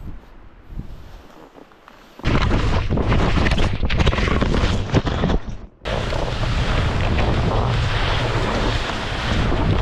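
Wind buffeting the microphone of a skier's camera during a powder run: a loud rushing noise that starts abruptly about two seconds in, cuts out for a moment a little past the middle, then carries on.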